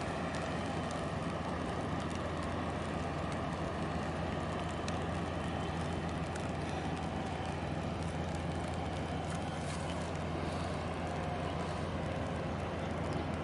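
Steady low drone of a large container ship's diesel engine as the vessel passes close by under way.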